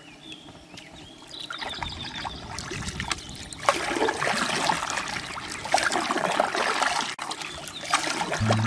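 River water gurgling and splashing around a drifting boat running over a shallow riffle, rising and getting louder a few seconds in. Music starts right at the end.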